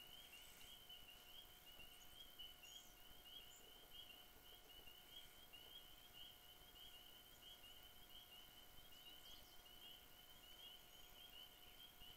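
Near silence with a faint, continuous chorus of high chirps repeating about three times a second, over a thin steady whine.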